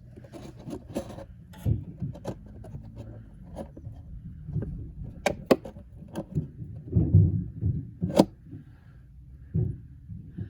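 Irregular handling noise: clicks, knocks and low thumps as the air compressor's crankcase drain plug is worked out by hand and a cut-down plastic jug is held under it, with a few sharp clicks about halfway and near the end of the third quarter.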